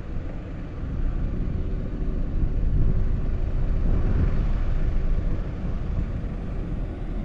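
Wind rumbling and buffeting on the camera's microphone, an uneven low roar that swells about a second in.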